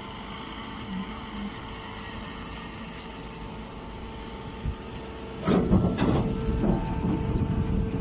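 Rice straw baler's motor running with a steady hum. About five and a half seconds in, loud irregular clattering and rustling starts and goes on.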